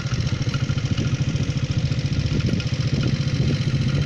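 Engine of the vehicle carrying the camera, running steadily at low speed with a fast, even low-pitched pulse.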